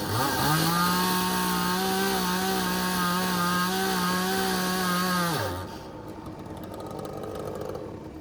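Two-stroke Echo chainsaw revved up to high speed and held there for about five seconds, its pitch wavering slightly, then dropping back about five and a half seconds in. A quieter, lower engine drone carries on afterwards.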